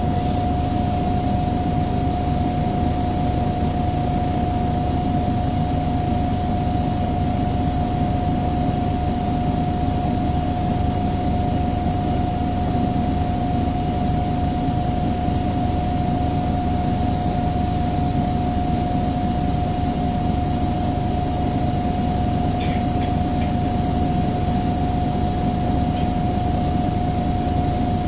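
MAN 18.220LF bus's six-cylinder diesel engine idling steadily while the bus stands still, heard from inside the passenger saloon, with a steady high whine running over the low rumble.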